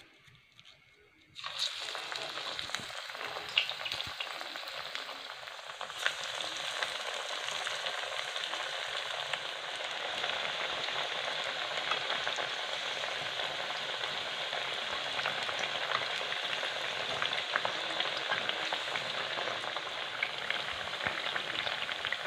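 Banana flower vadas deep-frying in hot oil in a pan: a steady sizzling hiss with scattered crackles, which starts suddenly about a second and a half in.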